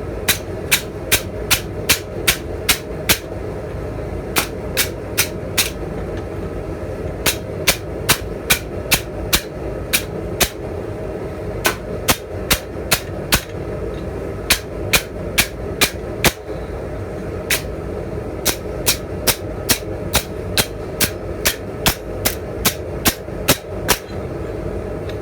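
Blacksmith's hammer striking a bar of iron on an anvil, in runs of quick, evenly paced blows, about two to three a second, broken by short pauses. A steady rushing noise runs beneath the strikes.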